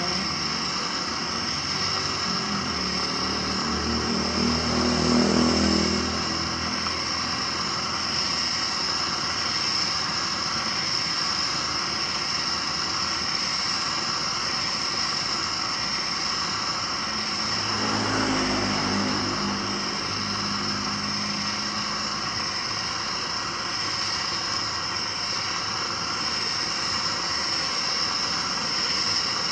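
Steady roaring hiss of the LPG gas burner heating a hand-cranked cast-iron popcorn pressure cooker as its drum is turned. Twice, a few seconds in and again around eighteen seconds in, a low hum swells for a few seconds.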